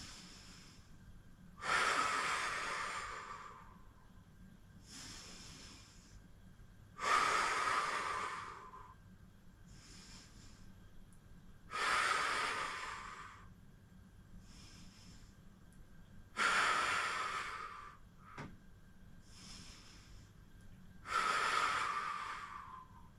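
A woman breathing hard and in a steady rhythm during the arm-pumping breath work of a Pilates core exercise: a long, forceful exhale about every five seconds, each fading away, with a quieter inhale between.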